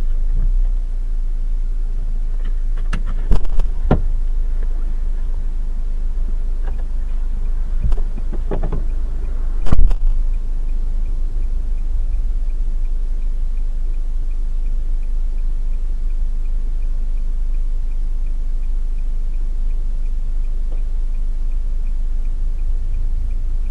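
Steady low rumble of a car interior picked up by a dashcam, with a few sharp knocks, the loudest about ten seconds in. From then on there is a faint steady ticking.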